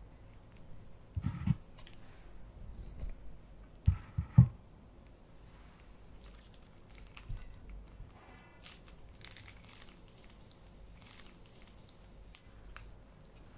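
Slime and its containers being handled: scattered crinkling and crackling, with a few dull thumps about a second in and again around four seconds in.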